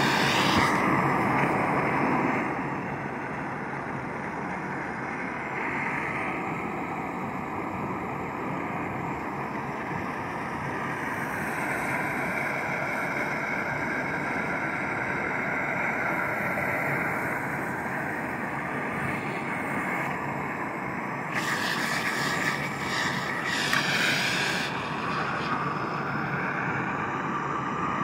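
MAPP gas hand torch burning steadily against a small two-stroke engine muffler, a continuous hissing flame noise as it burns out the carbon and oil clogging it. The hiss brightens for a few seconds about three quarters of the way through.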